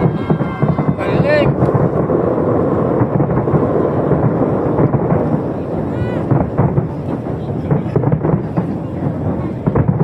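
Fireworks display booming and crackling continuously, with a deep rumble under dense rapid bangs, and a few short whistling glides, near the start and about six seconds in. Crowd voices mix in underneath.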